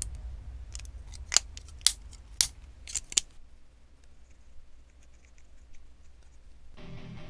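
Hard plastic Gunpla parts clicking sharply as they are pressed and snapped together, five or six clicks in the first three seconds, then faint light scratching of a Gundam Marker tip on the plastic.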